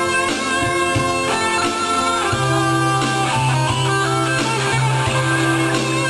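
Instrumental guitar music: long held notes over a steady bass line.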